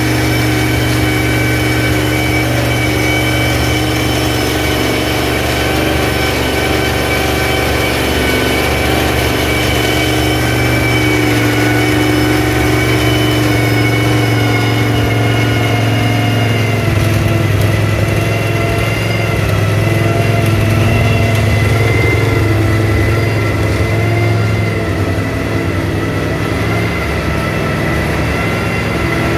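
Duqueine D08 LMP3 race car's Nissan V8 running at a steady idle, with its note shifting slightly about halfway through and no revving.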